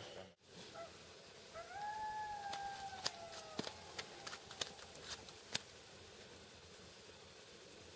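An animal's long whining call, rising then slowly falling, followed by a series of sharp clicks.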